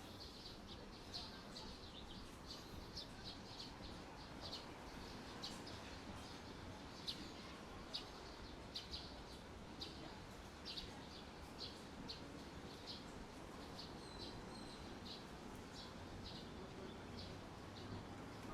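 Caged songbirds chirping: many short, high chirps in quick, irregular succession over a faint low background murmur.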